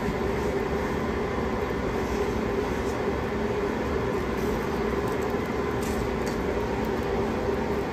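Steady mechanical drone of a commercial pizza oven's burner and ventilation: an even rush with a constant low hum, and a few faint ticks.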